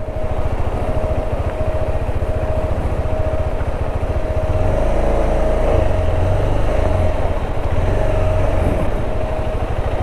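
Motorcycle engine idling close by, an even low pulse with a thin steady whine over it; the low rumble grows heavier about halfway through.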